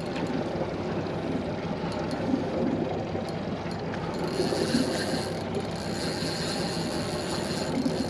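Steady low drone of idling outboard motors, with a faint high hiss in the second half.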